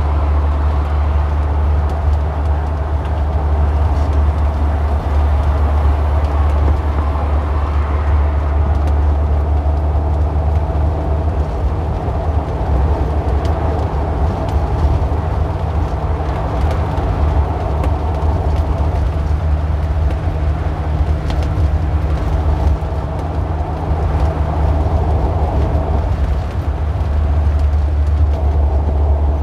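A car engine running steadily with a deep, even hum and a layer of road noise over it, without revving up or down.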